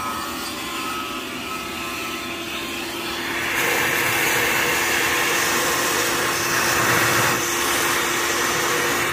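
Vacuum cleaner running steadily, sucking loose debris from around the engine's fuel injector ports. It gets louder about three and a half seconds in.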